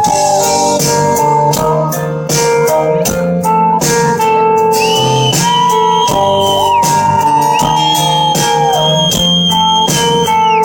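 A live pop-rock band playing an instrumental passage between sung lines: guitar holding long notes that bend in pitch, over drums and bass keeping the beat.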